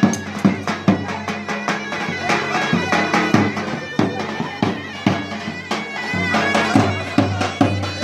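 Traditional Turkish folk music: a shrill reed pipe, zurna-like, holding a melody over drum beats about twice a second.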